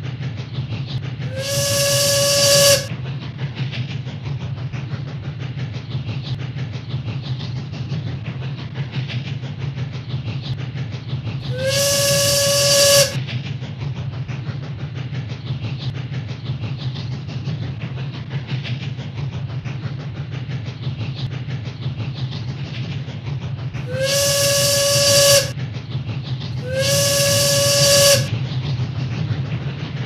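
Cartoon steam train sound effect: a steady low rumble of the train running along the track, broken by four steam whistle blasts of a little over a second each, one steady pitch. The first whistle comes just after the start, the second near the middle, and the last two close together near the end.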